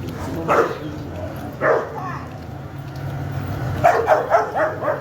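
Dog barking: single barks about half a second and a second and a half in, then a quick run of barks near the end.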